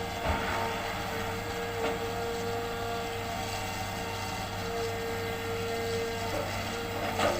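Hitachi hydraulic excavator running at work, a steady engine note with a constant whining tone over it. Near the end a louder, rough burst of noise comes in.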